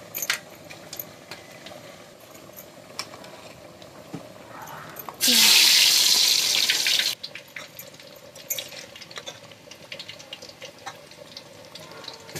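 Whole spices frying in hot oil in a steel pot, crackling with small pops. About five seconds in, sliced onions go into the oil and it hisses loudly for about two seconds, then settles back to a light sizzle.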